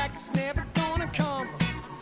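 Background pop music with a steady beat and a melodic lead line.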